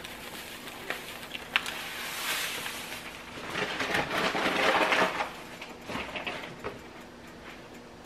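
Granulated sugar poured from its bag onto spaghetti sauce in a pot: a soft hissing rustle of falling granules and handled bag, loudest around the middle, with a few light clicks.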